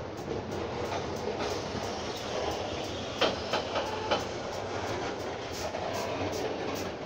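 Train rolling along the rails with a steady rumble of wheel noise. A few sharp clicks come between about three and four seconds in.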